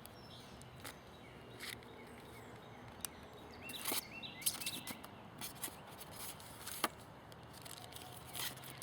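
Faint scattered clicks and light taps of small parts being handled, a few seconds apart, over a low steady background hiss.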